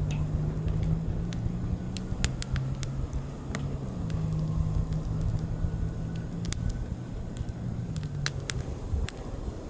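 Burning firewood logs crackling, with sharp pops at irregular intervals. Under them a steady low drone runs throughout, shifting in pitch a few times.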